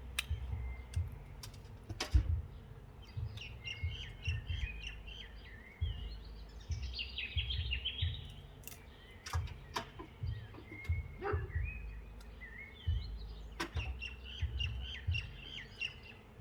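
Several runs of bird chirping. Scattered sharp clicks, the loudest about two seconds in, and a gusty low rumble run underneath.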